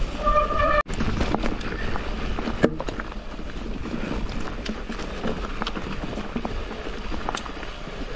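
Mountain bike riding down a rough trail: tyres rolling over dirt and stones with scattered clicks and rattles from the bike, and wind on the microphone. A short steady whine sounds in the first second, and one sharp knock comes a little under three seconds in.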